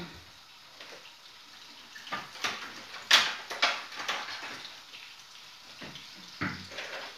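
Kitchen clatter: a series of knocks and clicks from things being handled, the loudest about three seconds in, over a faint steady hiss.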